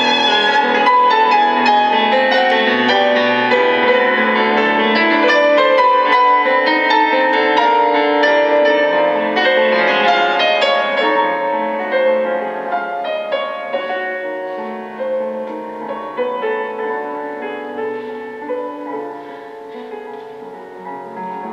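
Classical violin-and-piano sonata recording played from CD through a single-ended tube amplifier built on a Cunningham CX-345 output valve and a loudspeaker. The piano is prominent, and the music grows quieter in the second half.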